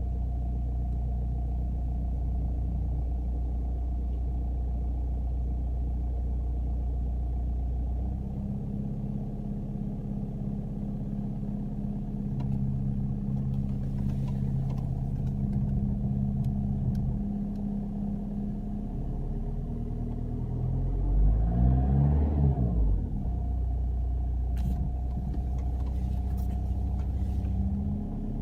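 Audi A3 8L running at idle while the noise in its steering is recorded: a steady low engine hum whose pitch shifts about eight seconds in. Around twenty-one seconds in the pitch briefly rises and falls, and faint clicks come near fourteen and twenty-five seconds in.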